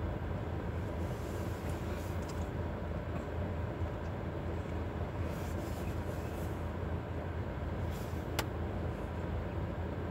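Steady low vehicle rumble inside a car's cabin, with one sharp click about eight seconds in.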